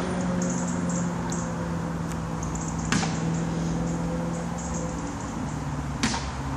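Two distant thuds about three seconds apart as a man kicks at a glass-panelled door and window, heard over a steady low hum.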